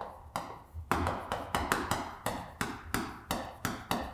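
Chalk tapping on a chalkboard as characters are written stroke by stroke: a quick, uneven run of sharp taps, about three or four a second.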